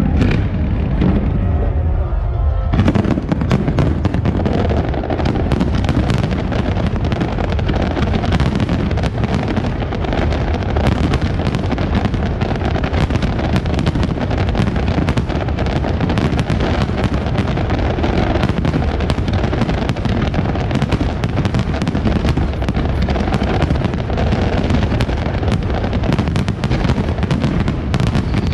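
Fireworks display: a dense, continuous barrage of bangs and crackles, growing thicker about three seconds in.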